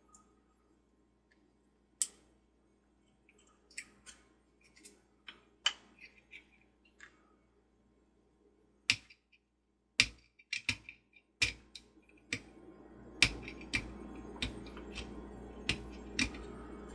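Razor knife scraping and picking at hardened glue on porcelain, heard as a series of sharp, irregular clicks and scratches that come faster toward the end. A steady low hum runs under the clicks for the last several seconds.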